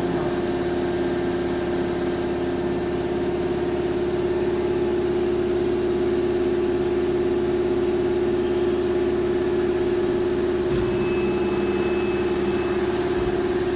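Lathe running with a steady machine hum. A thin high whine joins about eight and a half seconds in.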